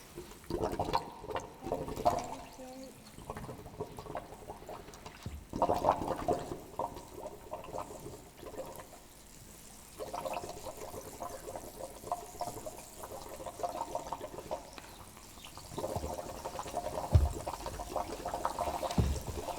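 Water gurgling and bubbling in four bursts of a few seconds each, with quieter gaps between them.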